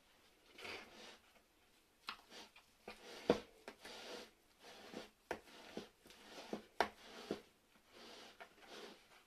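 Hands working soft, sticky bread dough in a plastic bowl: irregular wet squelches and rustles, with a few sharp knocks, the loudest a little over three seconds in.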